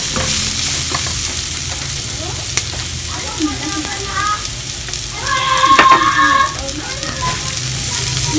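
Sliced onion, garlic, ginger and red bell pepper sizzling in a little oil in a nonstick pan as they are stirred with a plastic spatula, with a few light clicks of the spatula against the pan. A short high-pitched sound rises over the sizzle a little past halfway and is the loudest moment.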